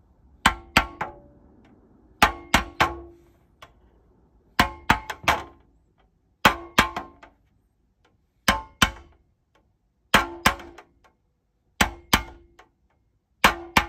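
Body hammer striking the head of a nail held in hemostats, denting rivet heads into a thin tin sheet on a small anvil. Sharp metallic clangs come in quick groups of two or three blows, a group about every two seconds, each blow with a brief ring.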